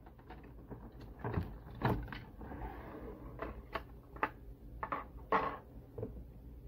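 Clear plastic blister tray crackling and clicking at irregular moments as an action figure is worked out of it by hand, with a longer crinkle about halfway through.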